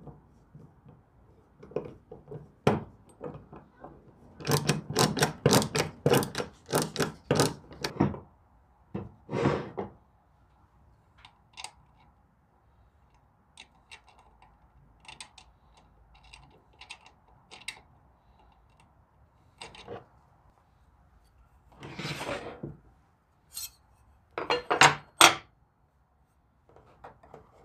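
Metal and wood parts of an antique hand plane being handled: a quick run of sharp knocks and clinks, two short scrapes, and scattered ticks, ending in a few more clicks.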